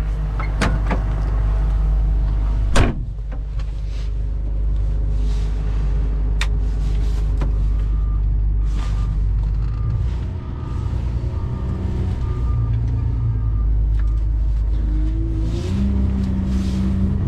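A truck running on the road, heard from inside the cab as a steady low rumble. It is broken by a few sharp knocks or clicks, the loudest about three seconds in, and a pitched engine tone rises near the end.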